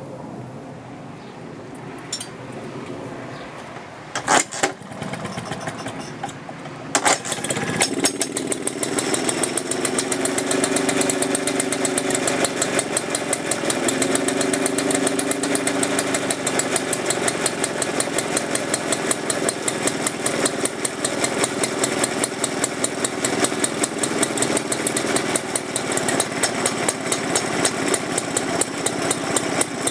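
Villiers petrol engine of a 1957 Ransomes Minor Mark 7 lawnmower being started: a few knocks around four seconds in, then the engine catches about seven seconds in and runs steadily with a rapid, even firing beat.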